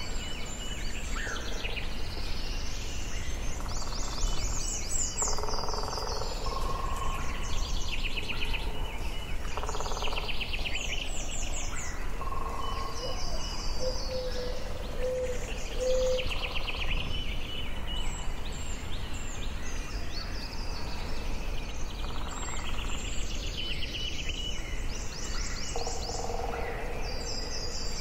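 Forest ambience: several birds singing short, repeated trilling phrases, one after another, over a steady low background noise.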